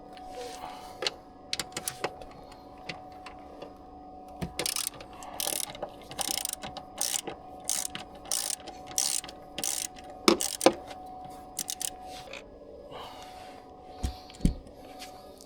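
Hand ratchet wrench worked on a bolt: a regular run of about nine rasping ratchet strokes, roughly one every half-second to two-thirds of a second. Two sharp clicks follow, then a couple of dull knocks near the end.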